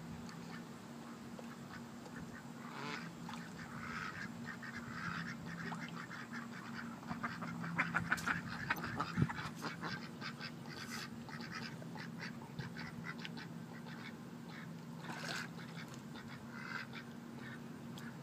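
Ducks quacking on and off, with a flurry of sharp splashes and snaps around the middle as a golden retriever grabs at floating bread in the water. A steady low hum runs underneath.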